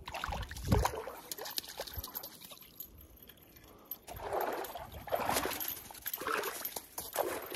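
A hooked landlocked salmon splashing in shallow water as it is pulled ashore, then, from about four seconds in, four short scuffs in snow as the fish is landed on the snowy bank.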